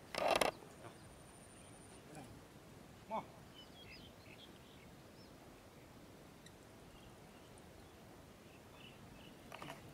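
Faint bird chirps over a quiet rural background, with a short loud burst of noise right at the start and a brief call about three seconds in.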